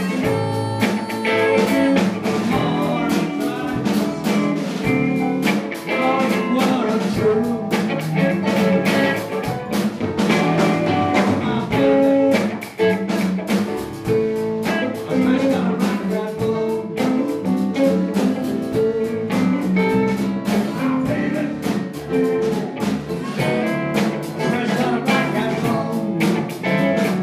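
Blues band playing live: electric guitar, bass guitar, drum kit and keyboard, over a steady drum beat.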